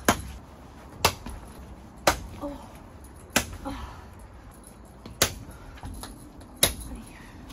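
Six sharp snapping clicks, a second or two apart, as a clear vinyl window panel is clipped onto a dome tent's roof frame by hand.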